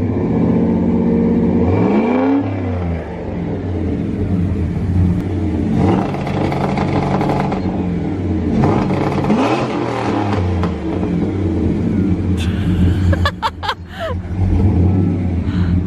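Ford pickup truck engine idling loudly through a modified, loud exhaust and revved a few times, the pitch rising and falling with each blip.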